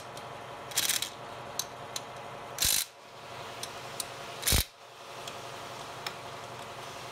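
Milwaukee cordless impact driver running in three short bursts, about one, two and a half and four and a half seconds in, driving the screws that fasten an electric motor to its mount plate. Light clicks come between the bursts.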